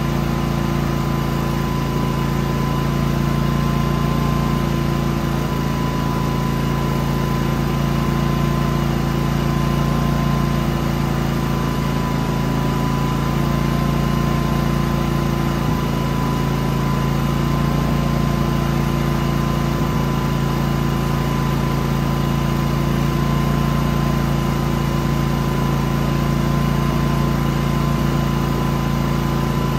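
Genmax GM9000iED inverter generator's engine running steadily at an even idle, burning off the last of the fuel in its carburetor.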